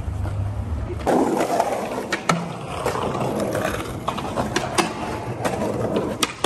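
Skateboard wheels rolling over pavement, with several sharp clacks. The rolling sound changes about a second in, from a low rumble to a rougher, grittier roll on stone paving.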